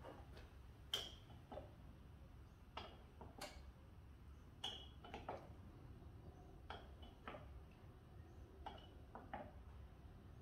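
Faint clicks from a hand pump working oil into a 6.0 Powerstroke engine's test port, a pair of clicks about every two seconds, one for each down and up stroke of the handle.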